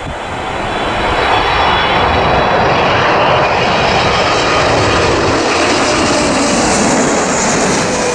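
Jet engine noise from a Boeing 777-300ER's GE90-115B turbofans: a loud, steady roar with a faint whine. It swells about a second in and then holds.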